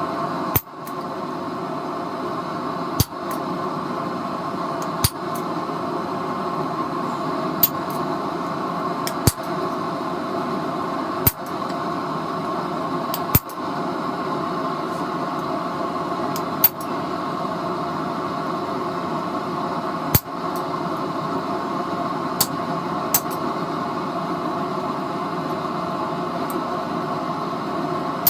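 A forge runs with a steady roar while a hammer strikes hot steel on an anvil now and then, single ringing blows every one to three seconds.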